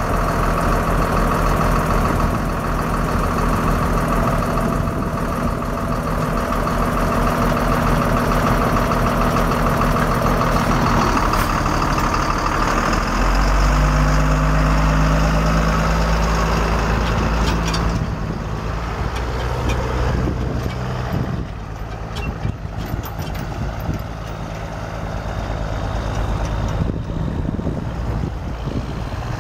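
Caterpillar 3116 six-cylinder diesel engine of a GMC TopKick dump truck running steadily. About 13 seconds in the engine note changes, and from about 18 seconds on it is quieter and duller.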